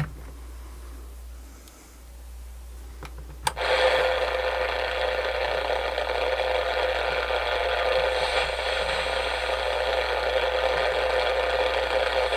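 Small radio speaker hissing with steady static. It comes in with a click about three and a half seconds in, after a quiet stretch with a couple of faint clicks.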